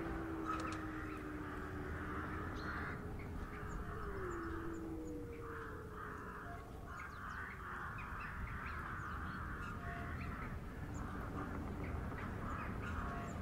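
Eerie background soundtrack: repeated raspy crow caws over a low, drawn-out drone that slides in pitch about four seconds in.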